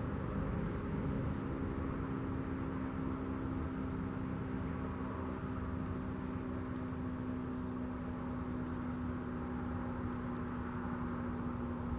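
Steady low mechanical hum, a constant drone with no rise or fall in pitch.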